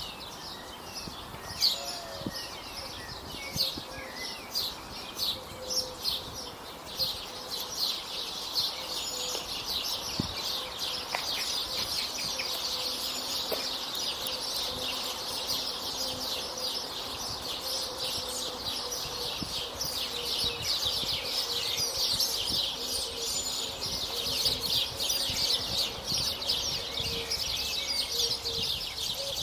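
Many small birds chirping in a dense, continuous chorus of rapid high chirps. The chirps come in separate bursts at first and thicken into steady chatter after several seconds.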